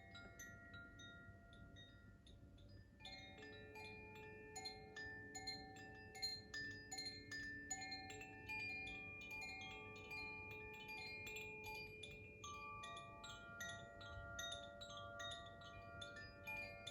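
Makino-style Koshi chime played by hand, its clapper striking the tuned rods so that many soft, overlapping ringing tones sustain and blend. The strikes are sparse at first and come thick and fast from about three seconds in.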